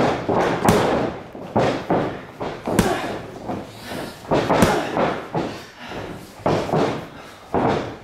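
Boxing gloves landing punches: a quick run of dull thuds, with three sharper smacks about a second, three seconds and four and a half seconds in.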